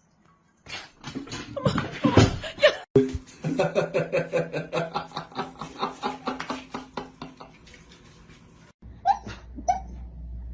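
People laughing in rhythmic bursts, starting about a second in and fading away. Near the end come three short, sharp rising sounds.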